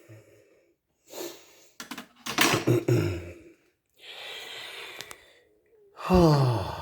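A man breathing out heavily and sighing, with a few sharp clicks, ending in a low groan that falls in pitch.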